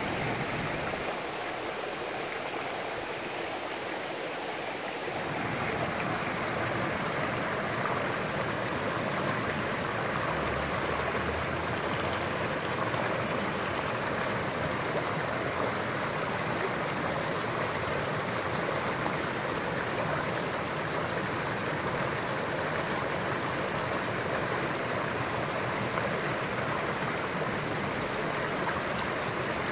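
Mountain torrent running over rocks: a steady rush of water, growing a little fuller and louder about five seconds in.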